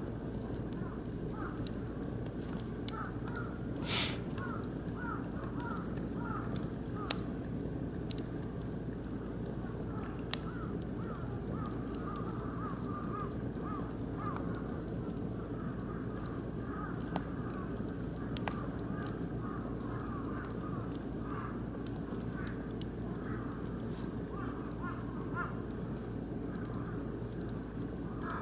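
Oak and beech wood fire crackling in a barbecue grill, with sharp pops scattered throughout and one louder crack about four seconds in.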